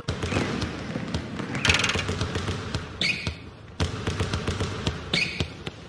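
Basketball being dribbled, bouncing repeatedly on an outdoor asphalt court with irregular knocks and thuds, and a few short higher-pitched scuffs among them.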